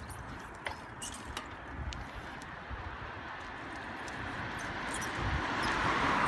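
A bicycle rolling along a concrete sidewalk: tyre noise and wind rushing over the microphone, with a few sharp clicks and knocks as the wheels cross the slab joints. The rush grows louder toward the end.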